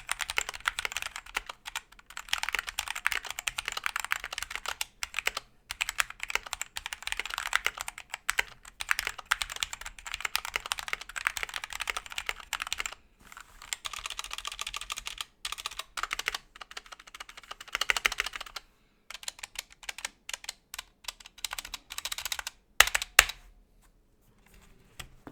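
GamaKay K77 mechanical keyboard with stock Gateron Black switches in a stacked plexiglass case, typed on in fast continuous runs of key clicks. Near the end come slower, separate presses, two of them much louder. Its cheap plate-mount stabilizers rattle, showing the stabilizers need modding.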